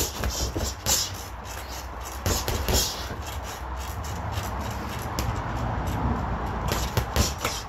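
Boxing gloves punching the padded ball of a free-standing BoxingBar Viper reflex bar: irregular sharp hits in quick clusters as the ball springs back on its stem, over a steady low rumble.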